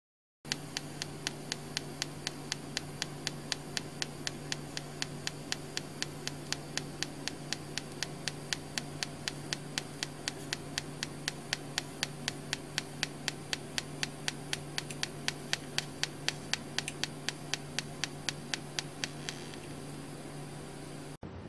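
Pulsed TIG welding arc: a steady buzzing hum with sharp ticks about four times a second, one for each current pulse of the arc. It starts about half a second in and cuts off suddenly near the end.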